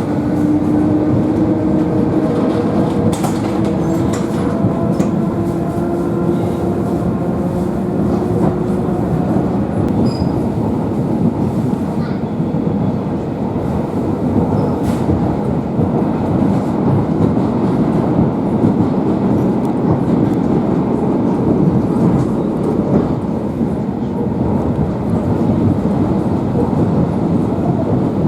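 Electric commuter train running along the track, heard from inside the carriage: a steady rumble of wheels on rails, with a slowly rising whine over the first nine seconds or so that then fades into the rumble.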